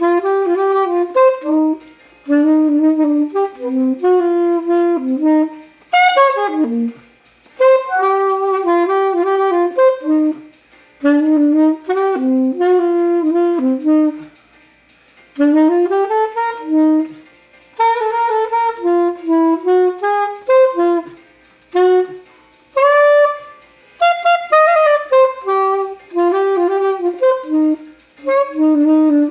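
Solo soprano saxophone playing a slow melody in short phrases, with breaths between them and a few notes slid up or down.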